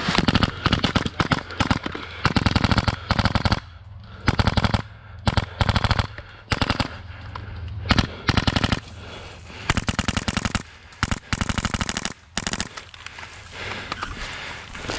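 Airsoft rifle firing on full auto in repeated short bursts of rapid shots, about a dozen bursts with brief pauses between them, stopping near the end.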